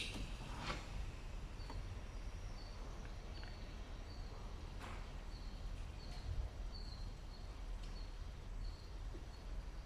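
Faint short high chirps, repeating about every two-thirds of a second, from a small animal such as a bird or insect, over a low steady rumble.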